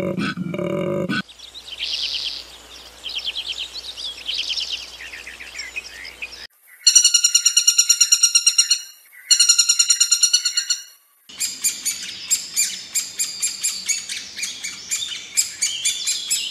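A male koala's deep, pulsing bellow stops about a second in. Woodpecker calls follow: faint high trills, then two loud runs of rapid ringing notes, then a string of sharp, irregular calls.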